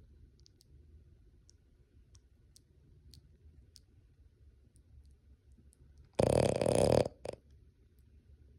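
Boston Terrier snoring in his sleep: one loud snore of under a second about six seconds in, then a short weaker one, with faint clicks from the mouth and quiet breathing around them. The snoring comes from the short, flat-faced airway of the breed.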